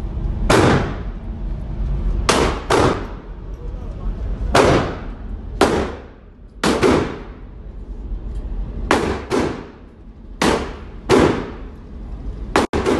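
Gunshots echoing in an indoor shooting range: about ten single shots at irregular intervals, each followed by a short ringing echo.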